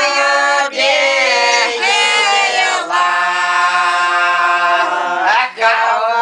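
A group of Siberian Old Believer women singing a folk song unaccompanied, several voices together in harmony, holding long drawn-out notes with short breaks for breath between phrases.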